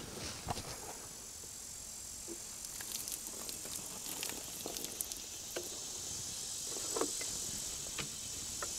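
Water poured from a jug splashing faintly onto a sawn white oak board, over a steady high hiss of insects.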